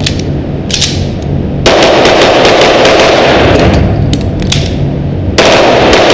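Rapid strings of pistol shots fired close to the microphone, echoing in an indoor range bay. Firing starts just under two seconds in, eases briefly near five seconds, then picks up again.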